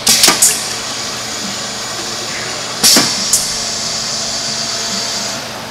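Pneumatic piston filling machine cycling: a few sharp air-valve bursts at the start, two more about three seconds in, then a steady hiss for about two and a half seconds as it dispenses a 250 mL dose into a graduated cylinder. A low constant hum runs underneath.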